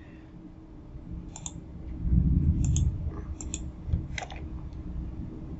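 A few separate clicks of a computer mouse and keyboard, spaced out with pauses, over a low muffled rumble a couple of seconds in.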